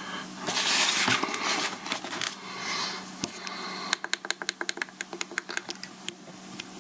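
Handling noise as a watch and its cardboard box are set down on a wooden desk: a rustle and scrape. About four seconds in comes a quick run of light clicks, about six a second, lasting some two seconds.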